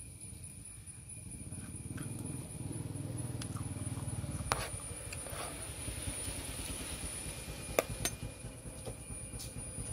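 A metal spoon clicks a few times against a plastic tray during eating, loudest just before the eight-second mark. Under it, a low rumble swells and fades in the first half, and a faint steady high tone runs throughout.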